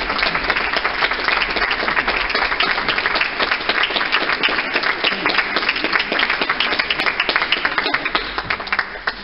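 A small audience applauding, the clapping thinning out and dying away near the end.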